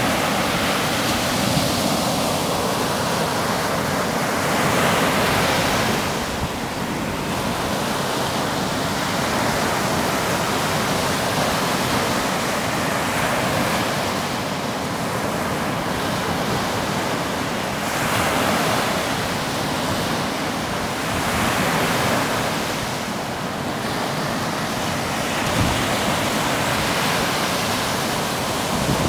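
Baltic Sea surf breaking on a sandy beach: a steady wash of waves that swells and eases every few seconds.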